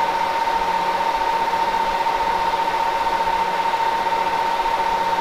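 A steady, unchanging electronic tone, a fairly high pitch like a held beep, over a bed of hiss.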